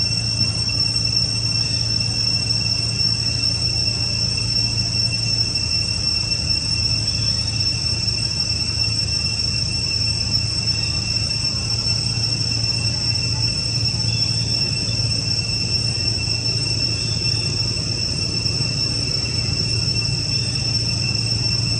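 Steady insect chorus in forest: an unbroken high-pitched buzz that holds one pitch, over a low steady rumble.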